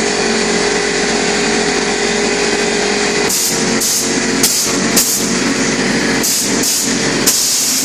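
Air compressor running steadily. From about three seconds in, a wall texture sprayer gives a series of short hissing blasts as texture is sprayed onto a drywall patch.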